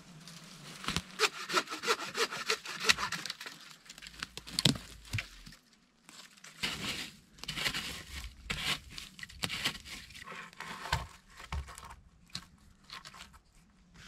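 Dry dead twigs and branches under a fir tree being broken off and cleared away: irregular snapping, cracking and rustling, with a sharp crack about four and a half seconds in.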